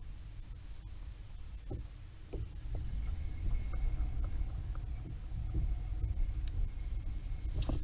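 Wind rumbling on the camera's microphone aboard a plastic kayak, with small water slaps and light knocks against the hull; the rumble grows louder about two and a half seconds in.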